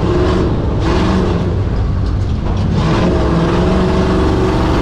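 Solid-axle GMC 2500HD race truck's engine running hard under throttle, its note rising and falling as it revs, heard from inside the cab along with a few knocks.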